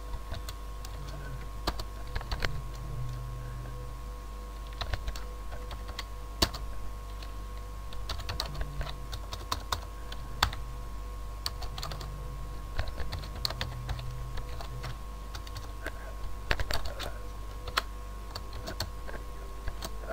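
Computer keyboard typing: irregular runs of key clicks with short pauses between, over a steady low electrical hum.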